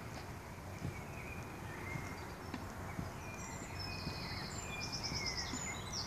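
Songbirds singing outdoors: repeated high trills and short whistled phrases start about three seconds in, over a steady background hiss and a few faint footsteps of football boots on artificial turf.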